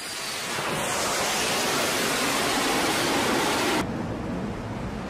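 Jet aircraft's engines at full power during a launch from a carrier deck: a loud, even rush of noise that cuts off suddenly near the end, leaving a softer steady wash of wind and sea.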